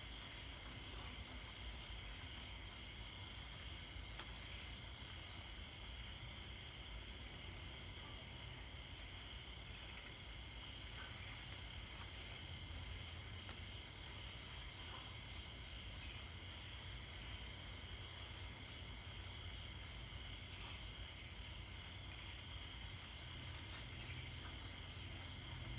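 Night insect chorus: several steady high-pitched trills at different pitches, one of them pulsing evenly, over a faint low rumble.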